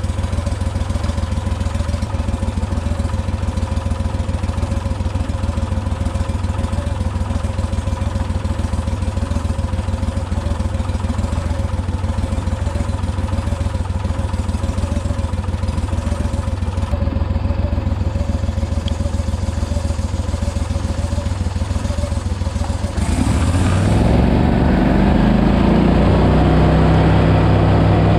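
Gator Tail surface-drive mud motor pushing a jon boat, running steadily at cruising speed. Near the end it is throttled up, the engine note rising and getting louder.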